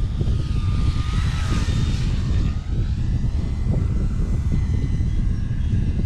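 E-flite Turbo Timber radio-control plane's electric motor and propeller whining as it flies past, the pitch shifting about a second and a half in, under heavy wind buffeting the microphone.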